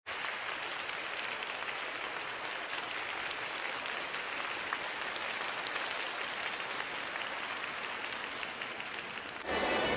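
Audience applauding steadily; the applause cuts off abruptly just before the end.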